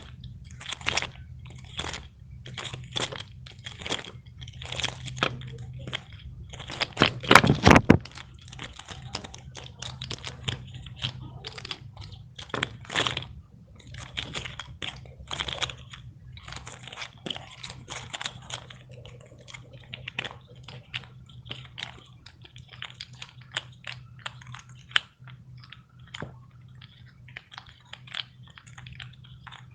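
Fidget toys handled close to the microphone: a run of irregular crackling clicks and crunches, with one louder burst about seven seconds in.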